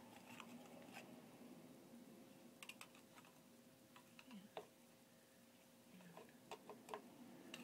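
Faint, scattered small clicks and taps from handling a small plastic squeeze bottle of dye over a crock pot of yarn, with a faint steady hum underneath.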